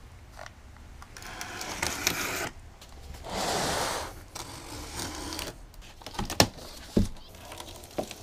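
Box cutter slitting the packing tape on a large cardboard box in two long scrapes. A few seconds later come several sharp cardboard knocks and rustling as the flaps are pulled open.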